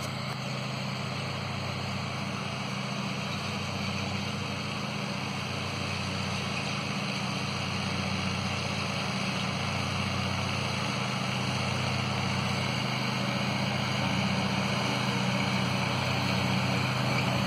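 Riding lawn mower engine running steadily at mowing speed, growing slowly louder as the mower comes nearer.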